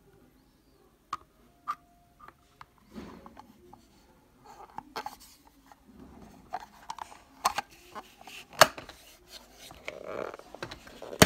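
A clear plastic cover being handled and pressed into the plastic holder on a shopping trolley handle: a string of sharp plastic clicks and taps, sparse at first and busier after a few seconds, with a hand rubbing over the plastic. The loudest click comes a little past the middle.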